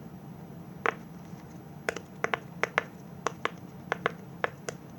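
Bubbles of a round silicone pop-it fidget toy being pressed in with the fingers, a dozen or so sharp little pops at an uneven pace.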